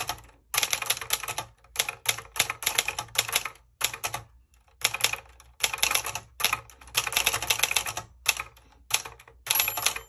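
Manual portable typewriter, a Brother JP-1 sold as the Wedgefield 200, being typed on: runs of rapid typebar strikes in bursts with brief pauses. Its small margin bell dings once near the end.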